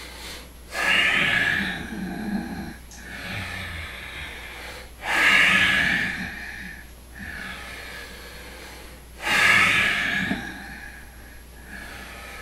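A man's deep, audible yogic breathing during a seated forward bend. There are three loud, forceful breaths about four seconds apart, each followed by a quieter, longer breath. This is the paced breathing of Dynamic Breath work, timed to curling down and up in the stretch.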